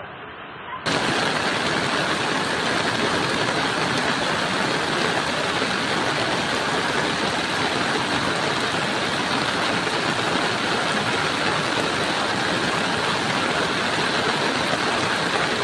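Muddy flash-flood torrent rushing. The loud, steady noise of churning water comes in sharply about a second in and holds without a break.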